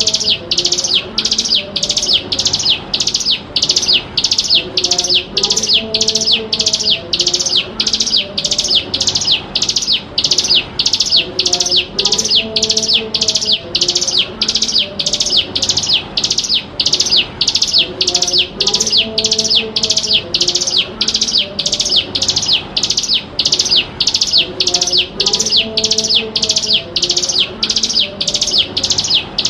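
Ciblek gunung calling: one short, high note repeated at an even pace, about one and a half a second, without a break. It is a lure (pancingan) recording of the species' call.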